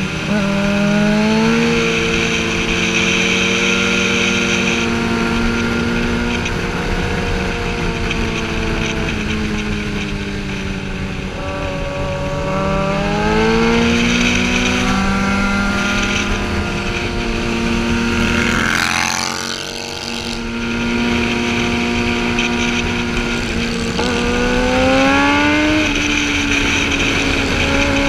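Sportbike engine heard on board at speed, its pitch rising as it revs up about a second in, around the middle and near the end, easing off in between, over steady wind noise. A brief rush of noise about two-thirds of the way through.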